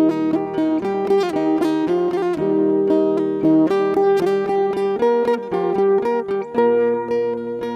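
Background music on plucked string instruments, guitar-like, with quick runs of picked notes over held notes.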